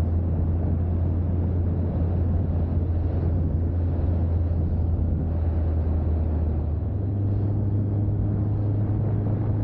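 BMW K100's inline-four engine running steadily while riding, heard from on board with a rush of road and wind noise; its pitch steps up slightly about seven seconds in.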